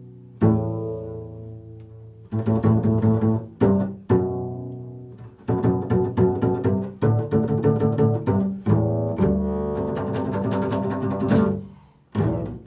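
Upright double bass played pizzicato in a slow, freely improvised line. Low plucked notes ring out and fade, a quicker run of plucks follows about halfway through, and a longer held note comes near the end.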